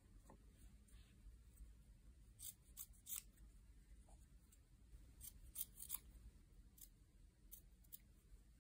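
Small red-handled scissors snipping through fabric, trimming the excess cloth from around an embroidered piece. Short, crisp snips come in two quick runs, about two and a half and five seconds in, then a few single snips near the end.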